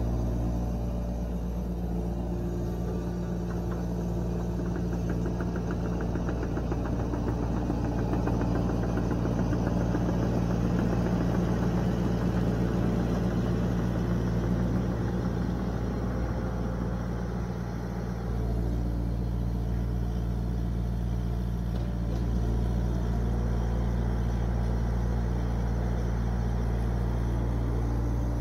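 Yanmar SV40 mini excavator's diesel engine running steadily, with a brief dip in level about eighteen seconds in.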